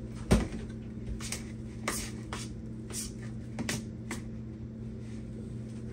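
A stiff cream cheese and crab meat filling being mixed by hand in a bowl: irregular soft knocks and taps against the bowl, the loudest a little after the start, over a steady low hum.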